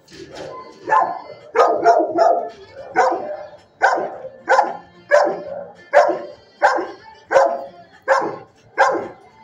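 A dog barking over and over in a steady rhythm, about one and a half barks a second, with a few quicker barks about two seconds in.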